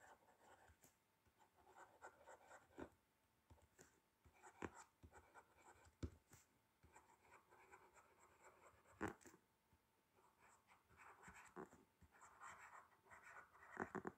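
Faint scratching of a pen writing by hand on a paper workbook page, with a few soft clicks along the way.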